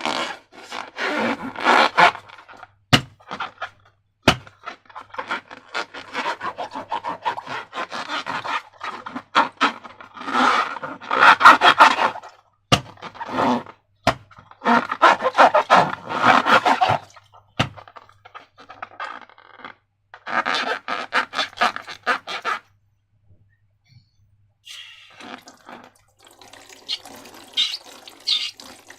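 Slime being worked and squished: irregular wet squelching and scraping in bursts, with a few sharp clicks and a short pause about three-quarters of the way through.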